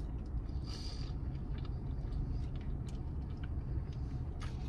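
Someone chewing a mouthful of crunchy spicy tuna sushi roll, with faint small mouth clicks, over a low steady hum inside a car.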